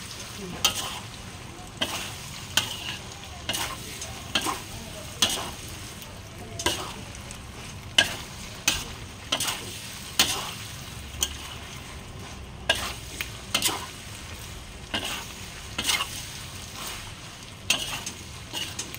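Metal spatula scraping and turning a mushroom and ginkgo-nut stir-fry in a stainless steel wok, stirring in palm sugar until evenly mixed. Sharp scrapes come about once a second over a steady frying sizzle.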